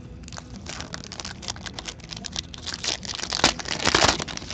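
Hockey card pack wrapper being torn open and crinkled by hand: a dense crackling that gets louder and busier towards the end, then stops.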